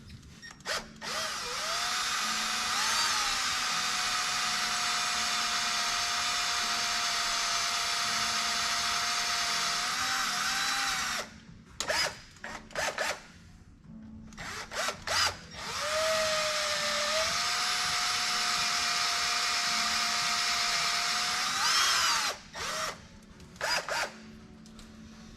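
Power drill drilling out the crank hub holes of a BMW F80 M3. It runs steadily for about ten seconds, then comes a few short trigger bursts, then a second run of about six seconds, which also ends in short bursts.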